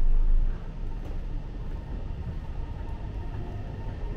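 Guangzhou Metro Line 18 train running at speed through its underground tunnel, heard from inside the carriage: a steady low rumble that swells louder for the first half-second, with a faint steady whine coming in about halfway through.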